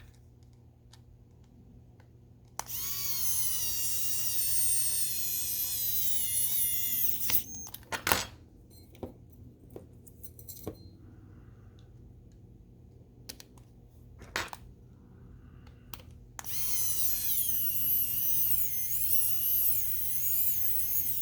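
Small electric screwdriver whining as it drives two screws back into a toy train's plastic shell, one run of about four and a half seconds and then a second longer run, its pitch wavering under load. A few handling clicks fall between the runs.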